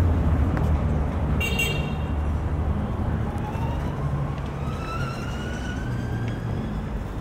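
Steady low rumble of city street traffic. About a second and a half in comes a brief high ring, and over the second half a vehicle's whine rises slowly in pitch.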